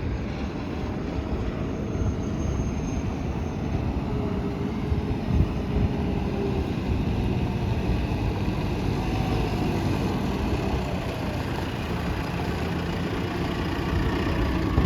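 JCB 3CX backhoe loader's 4.4-litre JCB diesel engine running steadily, with a couple of light knocks about five seconds in.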